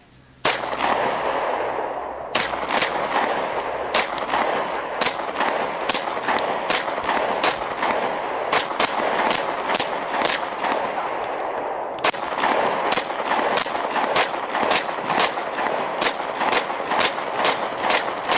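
Repeated gunshots from a Beretta Neos U22 .22 LR pistol, fired one after another at irregular intervals, coming faster near the end. A steady hiss runs under the shots.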